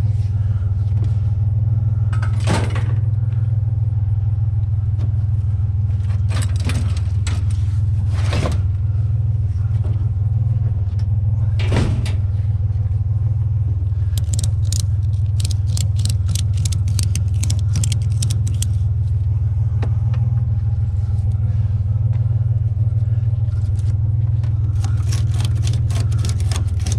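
A truck engine idling steadily while a ratchet strap is cranked tight, in two long runs of rapid clicks, with a few single knocks of the strap hardware before them.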